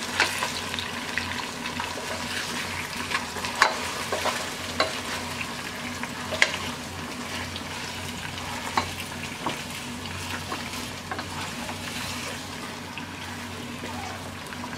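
Chicken pieces with onions frying in oil in a pot, sizzling steadily while being stirred, with scattered sharp clinks and scrapes of the spoon against the pot, the loudest about a third and halfway through.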